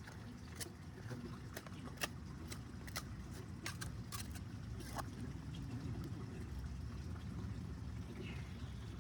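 Scraping, clicks and small knocks of soil, stones and roots being dug out by hand, coming thick in the first five seconds and then thinning out, over a low steady rumble.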